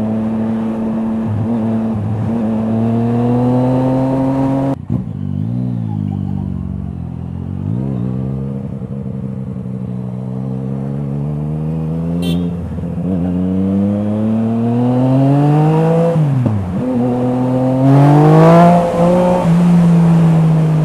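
Yamaha MT-09's three-cylinder engine through an Akrapovič exhaust while the bike is ridden. The revs climb, fall suddenly about five seconds in, dip and rise a few times, climb steadily, drop sharply again around sixteen seconds and pick up once more.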